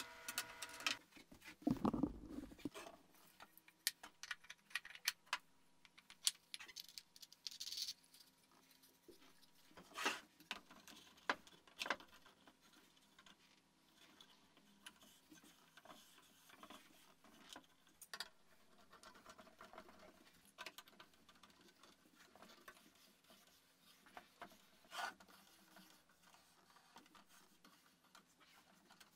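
Scattered small clicks, clinks and knocks of hand work on a plywood camera boom arm: a wrench on a nut and bolt, then the jointed plywood arm being handled and flexed at its bolted joints. A heavier thump comes about two seconds in.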